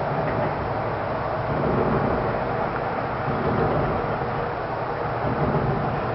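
A loud, steady rumbling drone with a low hum under it and no separate bangs: the unexplained sound heard outdoors at night that has kept residents awake for several nights.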